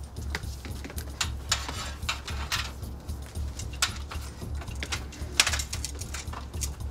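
Irregular clicks and light metallic knocks as someone climbs an aluminium ladder and handles a cable, over a steady low hum.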